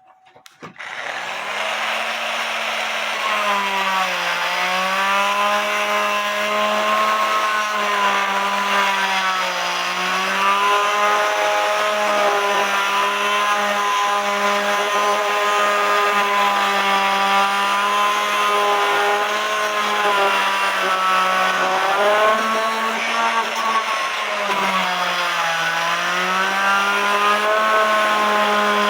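Oscillating multi-tool starting about half a second in and running steadily with a buzzing whine, its blade cutting through the glue that holds a bellows tube in a cuckoo clock case. The pitch sags and recovers several times as the blade is pressed into the work.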